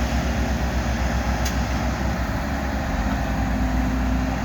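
Heavy diesel equipment engines running steadily under load as a loader and backhoe push a crawler, with an even low throb. A single sharp click sounds about a second and a half in.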